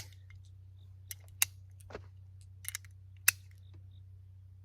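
Single shots from a 9mm AR-15-platform carbine, heard as a few short, sharp cracks at irregular spacing, the loudest two about a second and a half apart, over a low steady hum.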